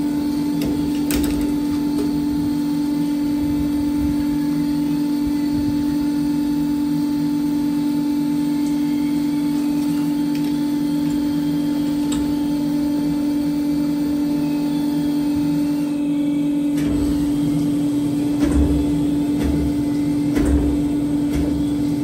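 Steady, even machine hum of a diesel injector test bench running, one constant pitch throughout. A few sharp metal clicks and low knocks as a part is handled in the bench's clamp, the clicks about a second in and about twelve seconds in, the knocks in the last few seconds.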